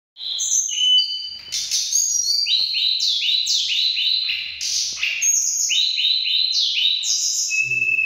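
Caged tledekan gunung songbirds singing loudly against each other in a heated song duel: dense, overlapping strings of quick, high, clear notes with no pause.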